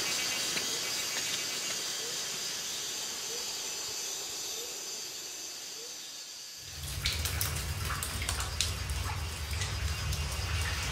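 A steady high hiss of forest insects, fading a little. About two-thirds of the way in it gives way to water dripping and trickling inside a rock mine tunnel, with many sharp drips over a low steady hum.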